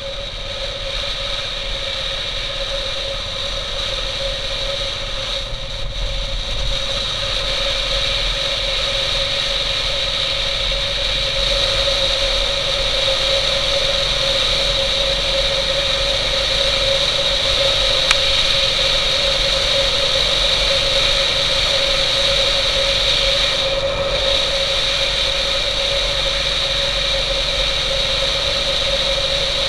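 Motorcycle riding at steady speed: the engine running under a steady rush of wind on a helmet-mounted camera, with a constant whistling tone. It grows a little louder over the first ten seconds or so, then holds steady.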